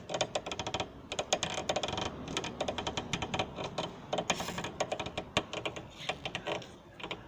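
Stabilizer link (sway-bar end link) on a Chevrolet Meriva's front suspension creaking and clicking in rapid, irregular runs as it is worked. The link is worn and dried out, and it is the source of the car's suspension creak.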